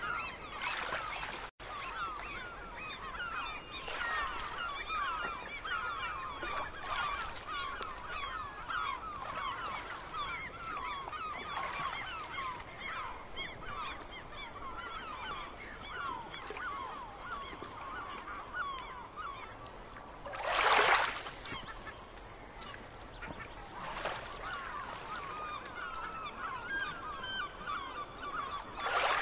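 A large flock of birds calling continuously, many short overlapping honking calls at once. A few brief whooshes of wind or surf cut across it, the loudest about twenty seconds in.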